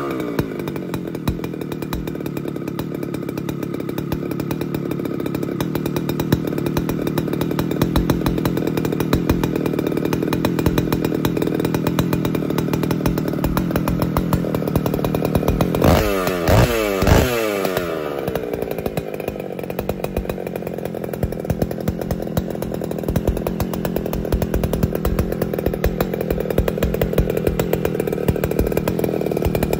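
Power Bee 820 single-cylinder two-stroke engine, big-bore kitted to 140cc, running steadily. About sixteen seconds in the throttle is blipped twice, the revs rising and falling quickly, and it then settles back to a lower steady speed.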